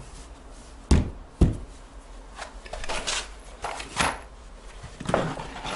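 Two dull knocks about a second apart as a Fermacell gypsum-fibre floor board is set and pressed into place on the floor. These are followed by lighter scattered taps and rustling as screws are picked out of a small cardboard box.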